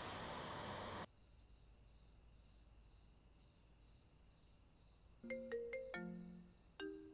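Outdoor hiss that cuts off suddenly about a second in, giving way to quiet night ambience with a steady high insect chirring. About five seconds in, a soft marimba-like melody of plucked mallet notes begins, breaks briefly, and starts again.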